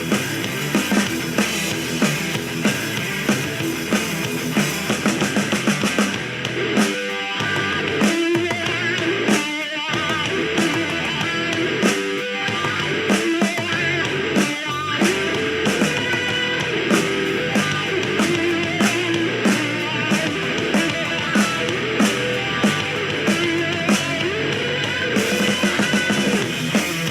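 Instrumental rock music with electric guitar and a steady drum beat, played through a small portable Bluetooth speaker, the Muzen Wild Go (one 5 W driver), in a sound test; the beat drops out briefly a few seconds in, then comes back.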